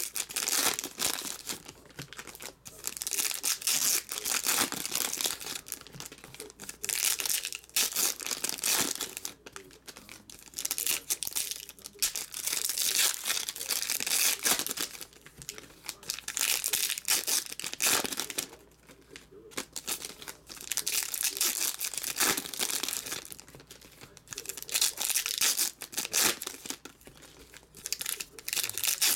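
Foil trading-card pack wrappers (2018 Topps WWE Legends) being torn open and crinkled by hand, one pack after another, in bursts of crinkling a second or two apart.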